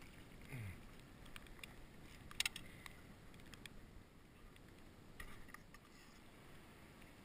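Faint handling sounds on a fishing kayak: a low wash of water with scattered light clicks and knocks, the sharpest about two and a half seconds in, and a short low falling sound near the start.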